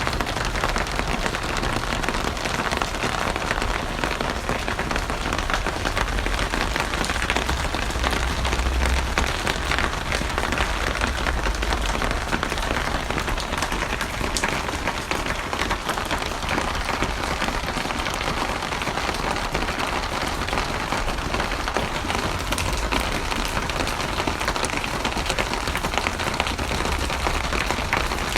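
Steady heavy rain pattering densely on a surface, with a low rumble beneath that swells and fades.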